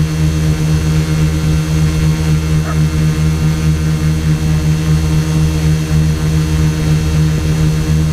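Quadcopter's electric motors and propellers buzzing steadily as it hovers in place in loiter mode, a constant hum with no change in pitch.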